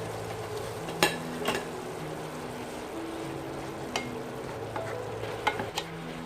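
Mixed vegetables with mushrooms stir-frying in an oiled pan: a steady sizzle, with the spatula clicking and scraping against the pan a handful of times.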